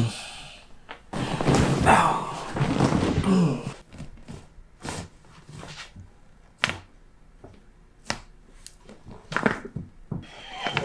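A few seconds of rustling and shifting, then a string of sharp knocks and pops a second or two apart during a chiropractic adjustment.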